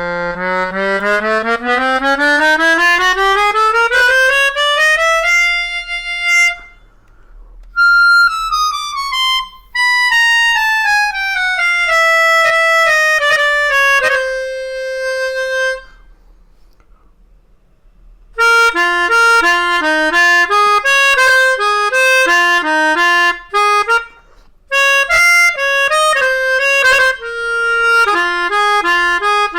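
Hohner Superforce melodica played: a steady climb up from its lowest notes, then a run back down ending on a held note, then a short tune with two notes sounding together.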